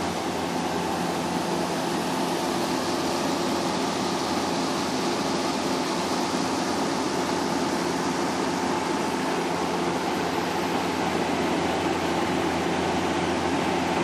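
Industrial ultrasonic humidifier running steadily, its blower pushing mist out through the duct: an even rush of air with a constant hum under it.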